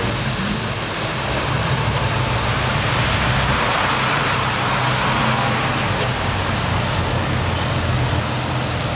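Street traffic: a steady engine hum underneath, with a vehicle passing that swells and fades around the middle.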